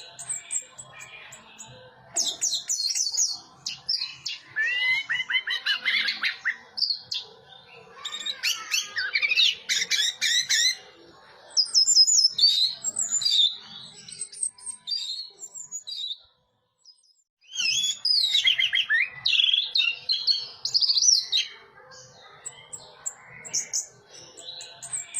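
Orange-headed thrush (anis merah) singing a 'teler' song: bursts of rapid, varied whistles and chirps that glide up and down. The sound cuts out completely for a moment about sixteen seconds in.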